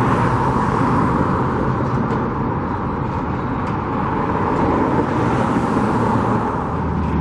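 Steady road traffic noise, an even wash of passing vehicles with no single one standing out.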